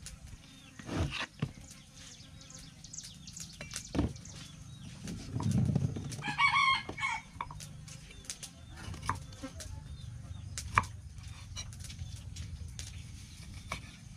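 A rooster crows once, about halfway through, over scattered knocks of a cleaver cutting a lime on a wooden chopping board. The sharpest knock comes near the end.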